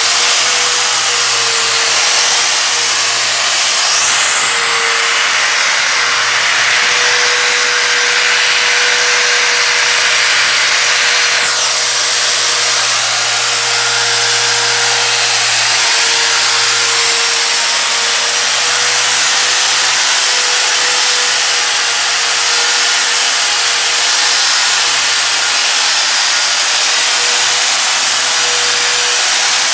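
Electric angle grinder running steadily with a 3000-grit dry resin diamond polishing pad rubbing on a marble floor: a constant motor whine over the hiss of the pad on the stone.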